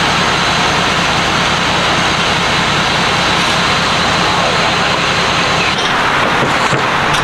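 A large pickup truck's engine running steadily at idle: a low drone under a loud, even rushing noise. The low drone drops away about six seconds in.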